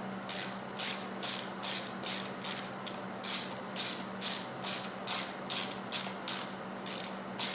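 Hand ratchet wrench clicking in a steady rhythm, about two and a half to three strokes a second, as it runs a bolt down on a Harley-Davidson Sportster's primary cover.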